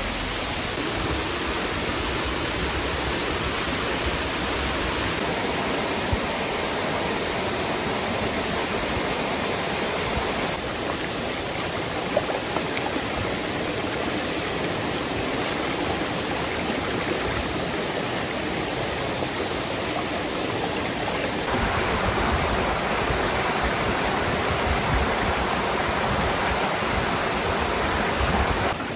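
Running water rushing steadily, a forest stream or waterfall, its tone changing abruptly a few times along the way.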